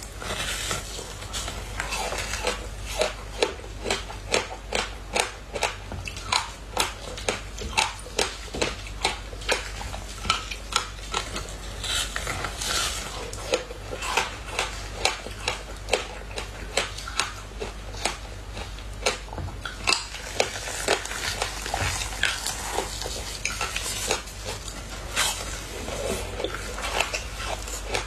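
Crunching and chewing of a frozen sheet of passion fruit pulp and seeds: sharp, brittle cracks as it is bitten and snapped, about one a second, with crackly chewing in between.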